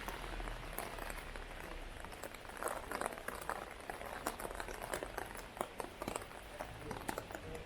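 Heavy rain falling, a dense, irregular patter of drops splashing on hard surfaces.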